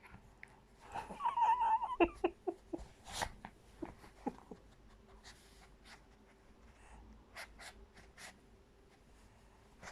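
A Chihuahua giving a high, wavering squeak-like whine for about a second, followed by short clicks and, later, a few quick sniffing puffs.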